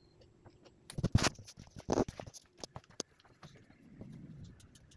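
Handling noise from a handheld phone being moved around: irregular knocks, taps and rubbing against the microphone, loudest between one and two and a half seconds in, then sparser.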